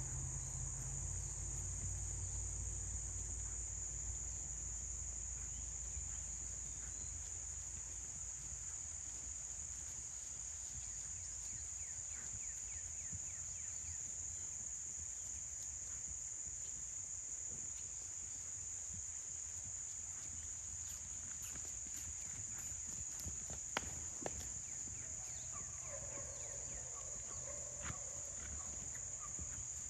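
Steady high-pitched drone of insects in the grass, unbroken throughout, with a few faint scattered knocks.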